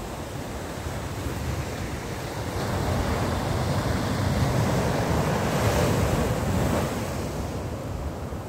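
Sea waves breaking and washing up the beach as foaming surf, swelling louder from about three seconds in and easing off near the end. A low wind rumble on the microphone runs underneath.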